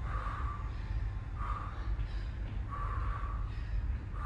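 A woman breathing hard from exertion during dumbbell snatches and reverse lunges: four short, forceful exhales, about one every second and a half.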